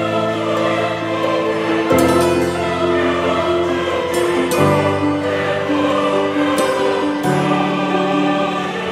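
Background music of slow, sustained chords that change about every two and a half seconds.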